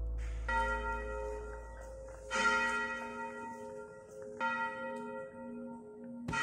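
Bell-like chime tones struck several times, each note ringing on with a long decay, the loudest strike about two and a half seconds in.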